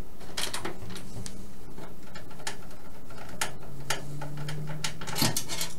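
Screwdriver working a screw out of a steel PC case's drive bay: irregular small metallic clicks and ticks.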